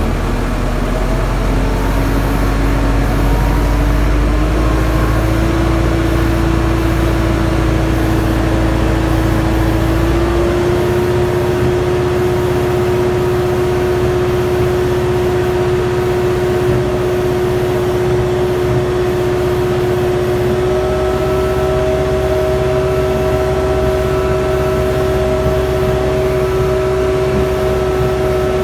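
Engine running steadily with a low rumble. A steady whine over it creeps up in pitch through the first ten seconds, the rumble changes about ten seconds in, and a higher tone joins the whine about twenty seconds in.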